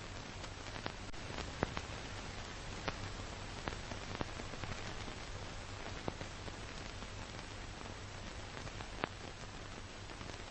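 Steady hiss with a low hum and scattered irregular clicks and pops: the surface noise of an old film transfer, with no other sound.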